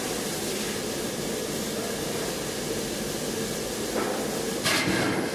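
Steady industrial din of forge machinery working red-hot metal, with a louder burst of noise about four and a half seconds in.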